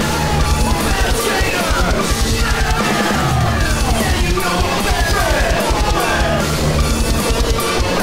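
Loud rock song with a driving drum-kit beat, in a punk or metal style, playing throughout.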